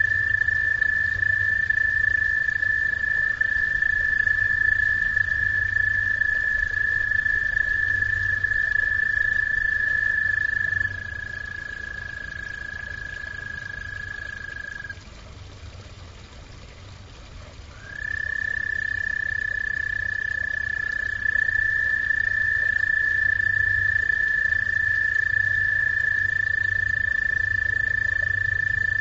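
Frogs calling at a pond: long, steady high-pitched trills, two or more overlapping. The calling drops off about a third of the way through, stops for a few seconds, then starts up again and carries on.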